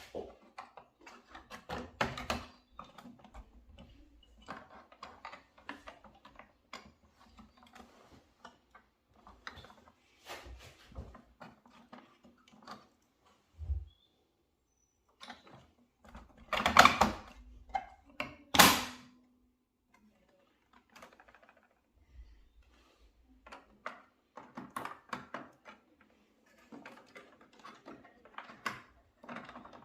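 Scattered clicks, taps and knocks of hand work with tools and parts, with two louder knocks a little past halfway.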